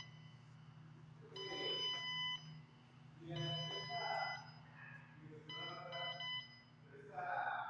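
Electric wheelchair's control-panel beeper sounding a short electronic beep about every two seconds, four times, each lasting up to about a second.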